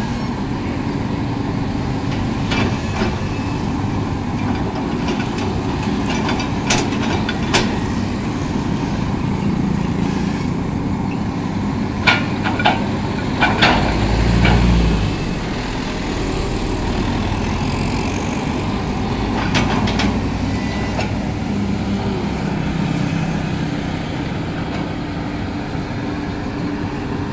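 Komatsu hydraulic excavator's diesel engine running steadily, with scattered sharp knocks and clanks as the bucket works in broken road rubble. A motorbike passes about halfway through, briefly louder.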